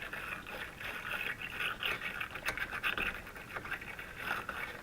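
Wire brush scrubbing corrosion off a car battery terminal in quick, uneven scratching strokes.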